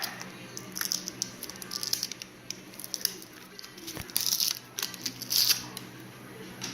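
Sticky rubber tire repair plugs being handled and pulled apart: scattered crackling, tearing and clicking, with two short hissy bursts a little past the middle.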